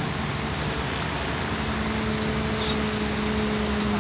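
Vehicle engine running steadily with a low hum, a thin high whine joining about three seconds in.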